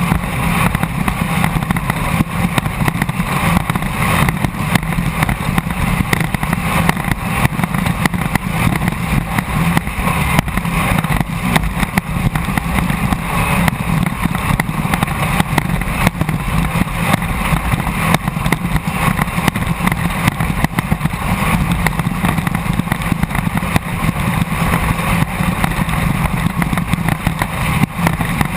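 Onboard sound of a Class 1600 off-road race car running hard: its 1600 cc air-cooled VW engine holds a steady high note under a constant rush of wind and rough-ground noise.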